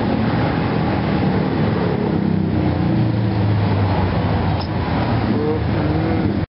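Steady street traffic noise with a motor vehicle's engine running close by, its low hum swelling about three to four seconds in as it passes. The sound breaks off abruptly near the end.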